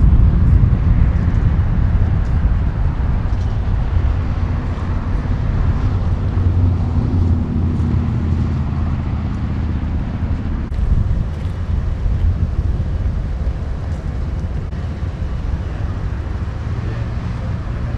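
Low, steady rumble of an idling vehicle engine, with wind noise on the microphone.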